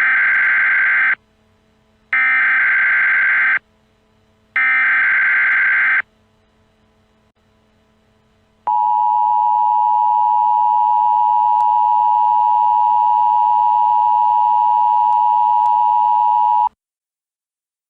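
Emergency Alert System header: three bursts of warbling digital data tones, each under a second and a half long, then the EAS two-tone attention signal held for about eight seconds before it cuts off suddenly.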